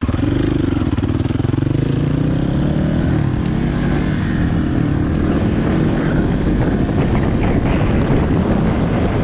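Dirt-bike engine running as the bike pulls away, its pitch shifting during the first couple of seconds. After that a rushing wind noise on the microphone takes over more and more as the ride speeds up.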